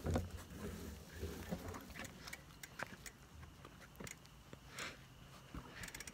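Bicycle being turned around with a phone strapped to it: scattered light clicks and rattles, with a quick run of clicks near the end.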